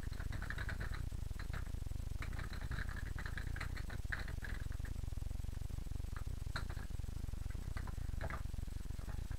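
Typing on a computer keyboard: irregular runs of quick key clicks with short pauses between them, over a steady low hum.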